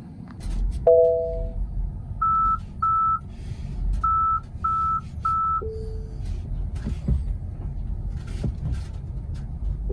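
Tesla Model 3 cabin alert chimes: a two-note chime about a second in, then five short high beeps in a broken rhythm and a single lower tone, over a low rumble and a few clicks.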